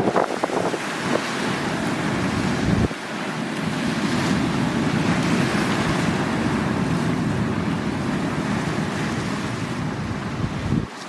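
Sea waves washing and breaking on the shore, with wind rumbling on the microphone.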